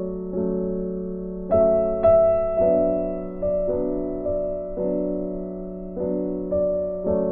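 Background piano music: soft electric-piano chords struck every second or so and left to ring out.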